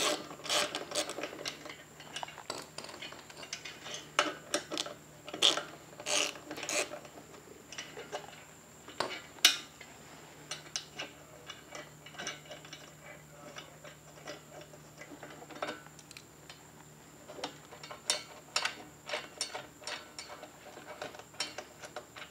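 Irregular light metallic clicks and rubbing from bolts on a motorcycle's rear luggage rack being loosened and turned by hand.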